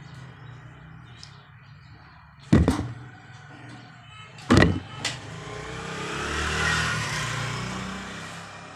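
Wire cutters snipping through fridge wiring: two sharp snaps about two seconds apart, then a rushing noise that swells and fades over a few seconds.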